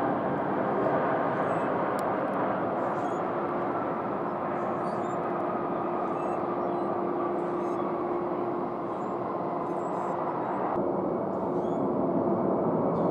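Steady jet-engine noise of airliners on the ground, a Delta Boeing 757-300 rolling along the runway after landing, with a faint steady hum through the middle. The sound changes abruptly near the end.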